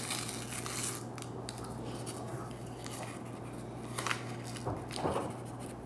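Paper cheese-powder packet torn open and crinkled, a dense crinkling in the first second, then scattered crackles with a couple of sharper ones as it is emptied into the plastic macaroni cup.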